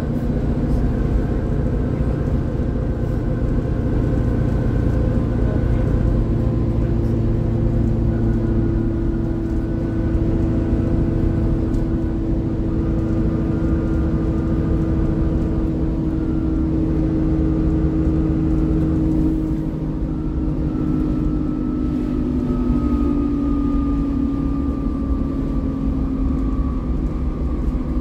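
ADL Enviro 400 double-decker bus on the move, heard from inside the cabin: a steady low engine and road rumble, with a few steady tones that drift slowly in pitch as the speed changes.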